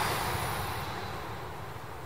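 Rush of an E5-series Hayabusa shinkansen that has just passed at high speed, dying away steadily as the train draws off.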